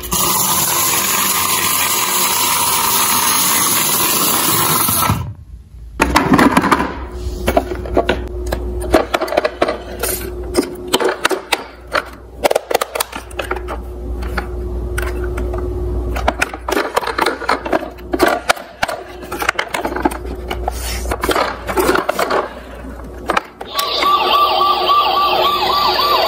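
Electronic siren and sound effects from battery-operated toy police cars, with clicking and rattling of the plastic toys as they are handled. Near the end a toy siren starts a rapid warbling wail.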